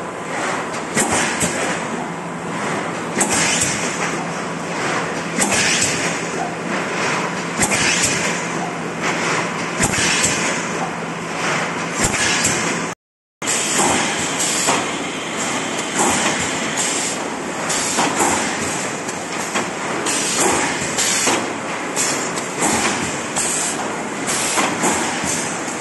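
Cup-lid thermoforming and stacking machine running, with a noisy burst of hiss and clatter repeating every second or so over steady machine noise. The sound cuts out briefly about halfway through.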